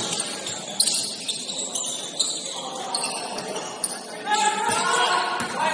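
Gym noise during an indoor basketball game: bright, high-pitched squeaks and jingling with a few sharp clicks in the first second, over a noisy hall, then voices calling out in the last second and a half.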